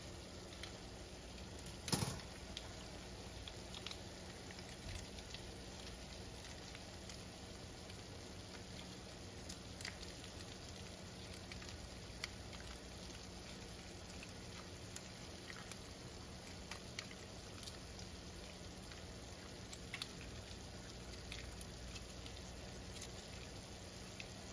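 Faint, sparse crackles and pops from taco-seasoned ground beef simmering in a skillet, over a steady low hum, with one sharp click about two seconds in.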